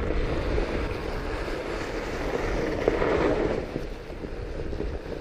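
Fat bike's 4.5-inch tires rolling over trail snow, a steady rush of noise mixed with wind buffeting the microphone; it swells between about two and three and a half seconds in, then eases.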